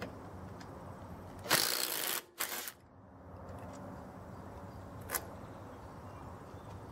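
Makita 18V cordless impact driver hammering on the lawn tractor engine's flywheel nut: a rattling burst of under a second about a second and a half in, then a brief second burst. A single light clack follows a few seconds later.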